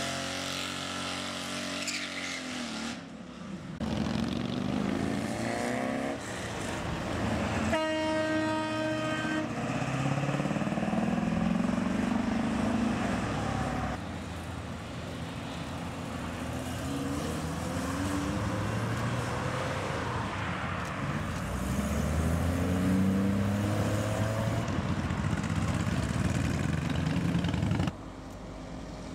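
Custom cars and hot rods pulling away one after another, their engines revving up and falling back as each accelerates past. One sounds a horn for about a second and a half, roughly a quarter of the way in.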